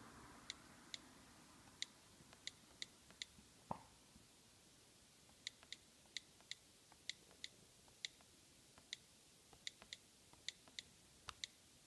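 Faint, short, sharp clicks at an irregular typing pace, all of the same tone, from the iPad Air's on-screen keyboard click sound, with one duller knock about four seconds in.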